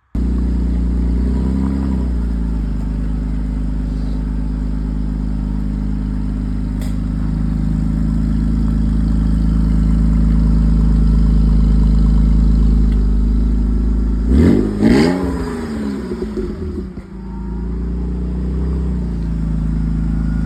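BMW E46 328i's M52 straight-six engine running steadily, blipped briefly about two seconds in and revved harder about fourteen seconds in, the pitch climbing and falling back, with a smaller rev a few seconds later.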